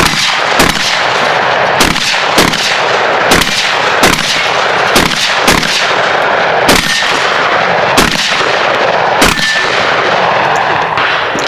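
Shotgun fired in quick succession, about eleven loud shots, several of them in pairs about half a second apart.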